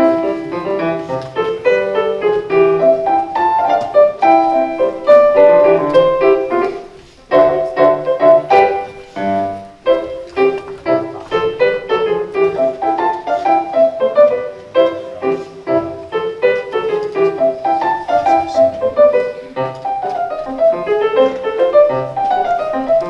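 Background music with fast, rapidly running notes, breaking off briefly about seven seconds in before carrying on.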